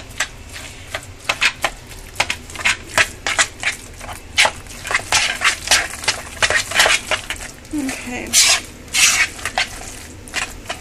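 A spoon stirring chunky, mashed guacamole in a plastic mixing bowl: wet squelching with irregular clicks and scrapes of the spoon against the bowl, a few each second.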